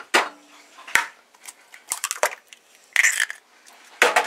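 Eggs being cracked into a mixer bowl of batter: a handful of short, sharp cracks of breaking eggshell spread over a few seconds.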